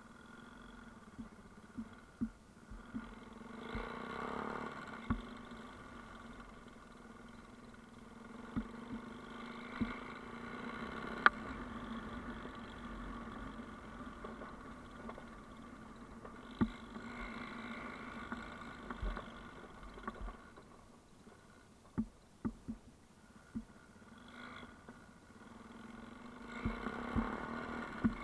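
Yamaha Ténéré motorcycle engine running at low revs on a rough dirt track, swelling louder every several seconds as the throttle opens. Frequent short, sharp knocks and clicks come from the bike jolting over the stony ground.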